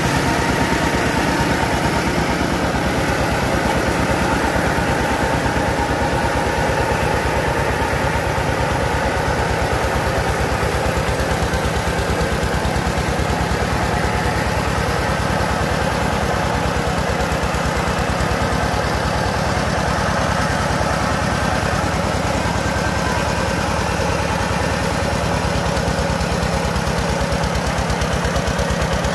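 Engine of a mobile rice-milling machine running steadily under load, driving the rice huller and polisher, with the whir of the milling machinery. The engine's firing makes a fast, even pulse that does not change.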